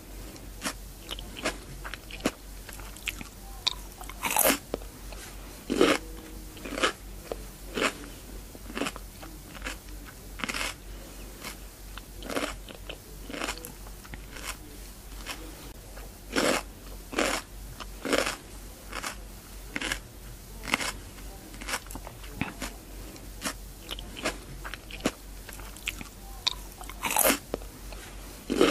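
Cucumber being bitten and chewed close to the microphone: a steady run of crisp crunches, roughly one to two a second, with a few louder bites among them.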